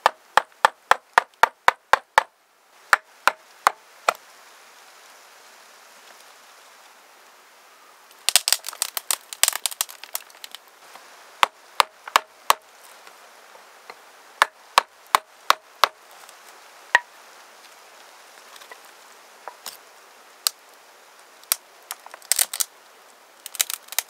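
Sharp knocks or strikes, a quick even run of about four a second at first, then scattered single strikes and short dense flurries.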